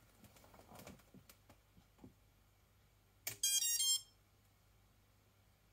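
Faint ticks and taps, then a sharp click as the coaxial copter is powered up, followed at once by a quick run of electronic start-up beeps stepping in pitch for about half a second.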